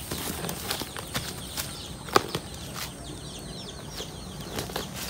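Scattered clicks and rustles with one sharp knock about two seconds in, over steady chirping of small birds.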